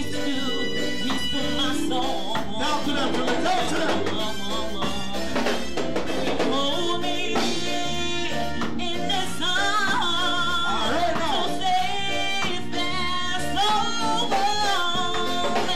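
A performer singing into a handheld microphone over instrumental backing music, amplified through a PA speaker.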